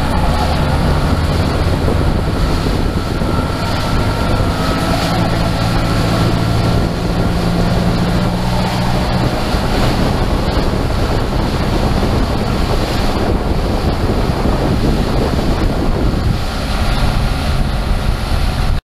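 Evinrude 300 two-stroke outboard running at speed as the boat heads across open water, a steady engine drone with the rush of the wake, and heavy wind buffeting the microphone. The engine's humming note is clearest in the first half and sinks into the wind and water noise after about nine seconds.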